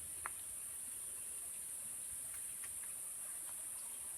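Steady high-pitched insect chorus, with a single faint click shortly after the start.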